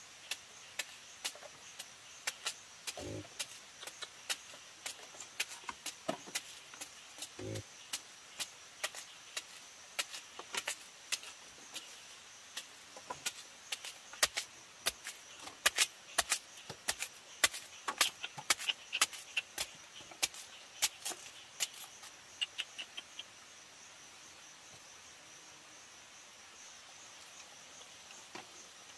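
Wild boar grunting briefly twice, a few seconds apart, among many sharp irregular clicks and knocks that grow denser toward the middle, over a steady high-pitched drone.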